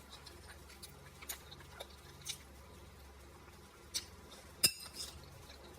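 Close-up eating sounds: a few small, scattered mouth clicks and smacks of chewing, with one sharper, louder click a little past the middle.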